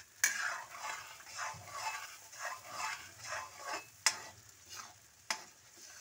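Metal ladle stirring ground masala paste and green peas as they fry in oil in a metal kadai: sizzling, scraping strokes about twice a second. A few sharp clinks of the ladle against the pan, near the start, about four seconds in and about five seconds in.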